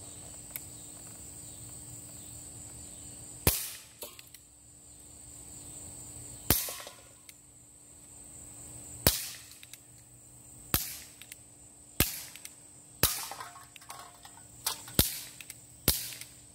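CO2-powered BB revolver fired one shot at a time: about nine sharp pops, the first few two to three seconds apart and then quicker, roughly a second apart, near the end.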